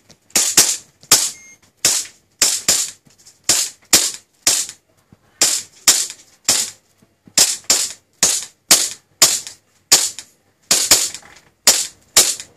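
KJ CZ P-09 Duty gas blowback airsoft pistol being fired semi-automatically through its magazine. About two dozen sharp pops come two or three a second, each the gas discharge with the slide cycling back.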